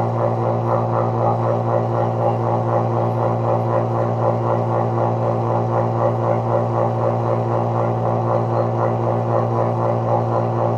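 Vacuum pump running steadily while evacuating a refrigerator's sealed system: a steady low hum with a fast, even pulsing over it.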